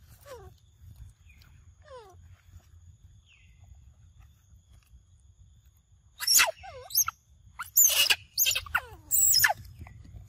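Monkeys giving a run of five or so loud, shrill squeals, each sweeping down in pitch, starting about six seconds in; before that only a couple of faint falling calls.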